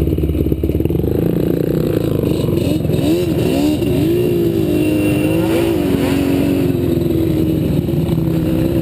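ATV engine running, its revs rising and falling several times through the middle, then holding steady near the end.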